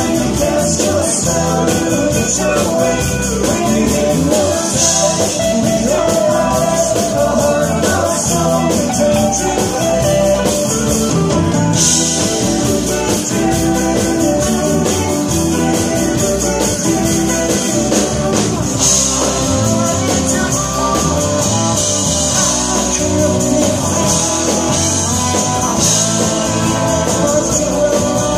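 Live band playing a soft-rock song, with strummed acoustic guitars, electric guitar, bass, drums and keyboards, played loud and steady.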